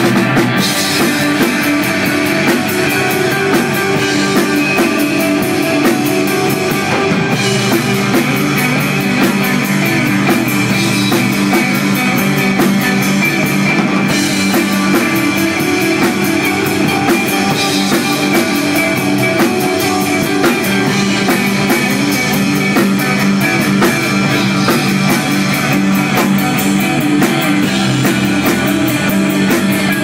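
Rock band playing live, with electric guitar and a drum kit.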